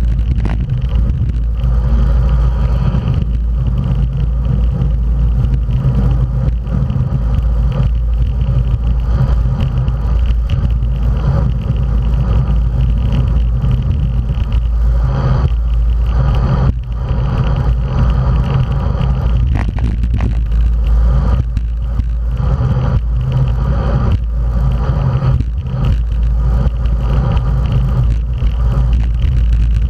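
Steady low rumble of wind buffeting a bike-mounted action camera's microphone at racing speed, with tyre and road noise from a bunch of road bikes on asphalt.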